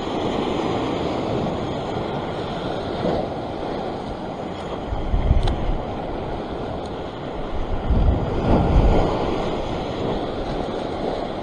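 Ocean surf washing and churning over a rock shelf, with wind buffeting the microphone. Two louder, low rumbling surges come about halfway through and again a few seconds later.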